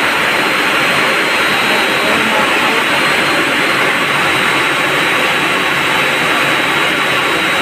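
Building plant-room machinery running: a loud, steady rushing roar with a thin high whine over it.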